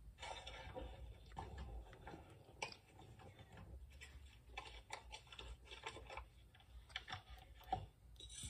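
Faint, irregular clicks and taps over a low hum, from a cooking clip playing on a television.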